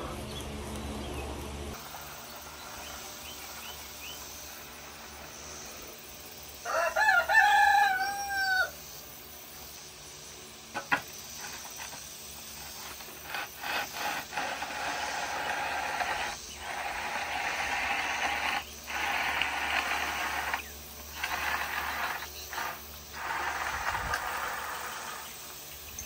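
A rooster crows once, about a quarter of the way in; this is the loudest sound. Later comes a long run of scraping strokes with short breaks between them: a bull float being pushed across freshly poured wet concrete.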